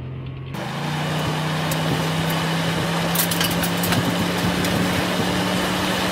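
2011 Ford F-150 SVT Raptor's V8 engine running at a steady pitch as the truck drives over sand, with a hiss of tyres and dust. The engine note jumps higher and louder about half a second in, and a few sharp ticks come around three to four seconds in.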